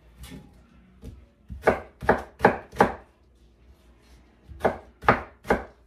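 Kitchen knife chopping pineapple into small pieces on a wooden cutting board: a quick run of four sharp cuts a little under two seconds in, then three more near the end.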